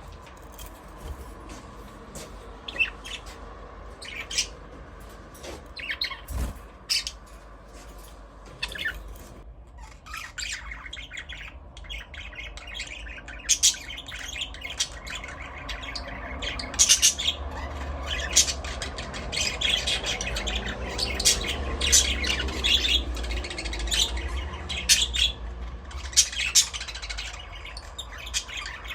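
A flock of budgerigars chirping and squawking: many short, overlapping calls, busier and louder in the second half.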